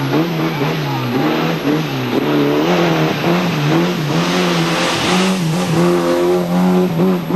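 Racing hatchback's engine revving hard, its pitch climbing and dropping repeatedly as the driver accelerates and lifts between the slalom cones. A louder rush of engine and tyre noise comes about four to five seconds in as the car passes close by.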